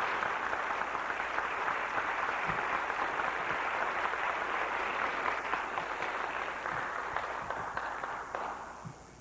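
Audience applauding, a steady wash of clapping that dies away near the end.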